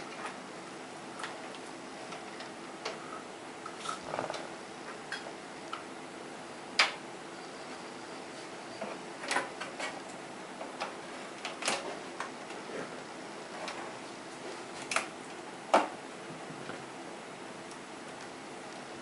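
Scattered irregular clicks and knocks of plastic connectors and cables being handled inside a PC case as the motherboard's main power connector is worked into place, over a faint steady hum.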